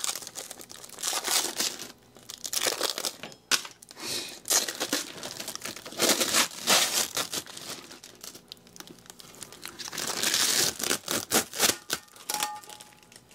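Clear plastic parts bag crinkling in irregular bursts as it is handled and opened.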